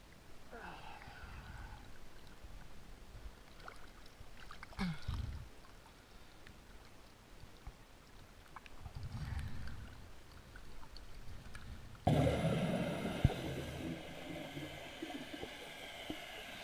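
Lake water lapping and sloshing around a diver at the surface; about twelve seconds in, the sound turns suddenly louder and muffled as the camera goes under water.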